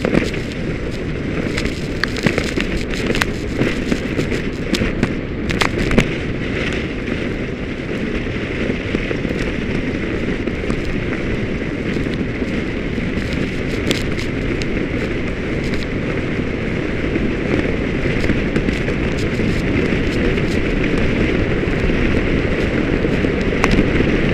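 Steady wind rush and buffeting on the camera microphone of a skier towed at speed behind a snowmachine, with scattered sharp ticks here and there.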